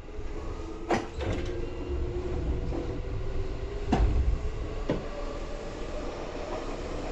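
Seibu 2000 series electric train running, heard inside the car above the underfloor line breaker: a low rumble of the running gear with a faint steady tone. The rumble grows louder after about a second. Sharp knocks come about a second in, at four seconds (the loudest) and at five seconds.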